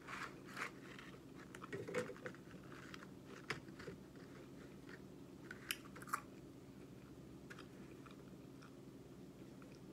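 A person biting and chewing french fries close to the microphone: moist mouth clicks and soft crunches, busiest in the first few seconds and thinning out after about six seconds.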